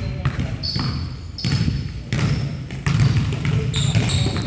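A basketball dribbled hard on a hardwood gym floor in uneven bounces, with sneakers squeaking sharply on the boards in short high squeaks.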